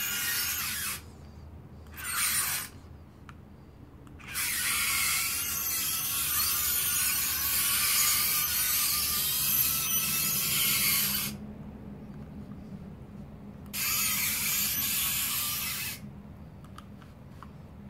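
Meccano MAX robot's geared drive motors whirring in stop-start runs: one ends about a second in, a short burst follows about two seconds in, a long run of about seven seconds starts about four seconds in, and another run of about two seconds comes near the end.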